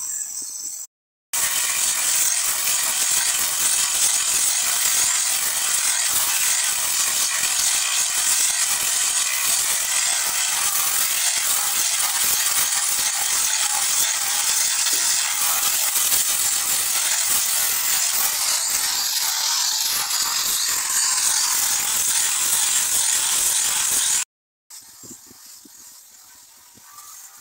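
Compressed-air paint spray gun spraying a coating onto a wooden boat hull: a loud, steady hiss. It starts abruptly about a second in and cuts off suddenly near the end, leaving a much quieter outdoor background.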